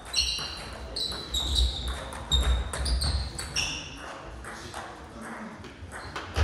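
Celluloid-style table tennis ball struck by bats and bouncing on the table in a doubles rally: a quick series of sharp clicks, each with a short high ping, thinning out after about three and a half seconds as the point ends. There are dull low thuds under the clicks.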